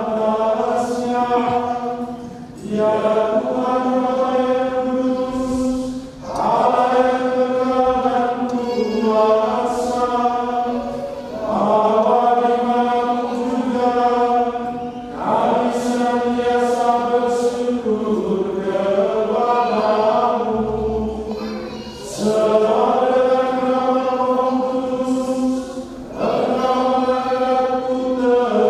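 Catholic priest chanting part of the Eucharistic Prayer of the Mass, a single voice held on a steady reciting tone with small rises and falls, in phrases a few seconds long separated by short breaths.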